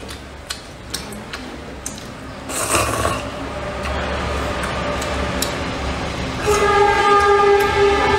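Chopsticks clicking and stirring in a paper cup of hot and sour glass noodles, with a short noisy slurp-like burst near the middle. About two-thirds of the way in, a loud steady held tone with several overtones starts and drowns out the eating sounds.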